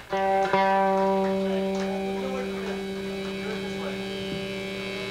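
Electric guitar chord struck through the amplifier and left ringing, slowly fading, over a steady amplifier hum.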